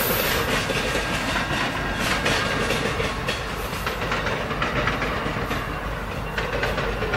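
Amtrak Superliner passenger cars rolling away along the track, wheels rumbling with irregular clicks and clacks over the rail joints, slowly fading as the train recedes.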